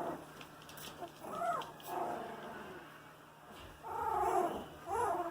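18-day-old boxer puppies whimpering and squealing: about four short cries that rise and fall in pitch, with brief gaps between.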